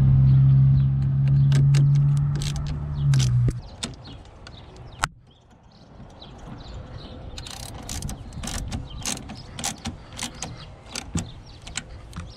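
A loud steady hum that stops about three and a half seconds in, then a socket ratchet wrench clicking in irregular runs as a battery terminal clamp is tightened.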